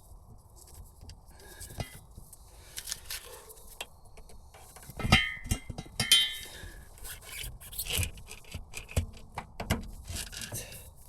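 Handbrake cable being worked into its underbody hanger clips: irregular scraping, rubbing and metallic clinking, with a few sharper knocks about five and six seconds in.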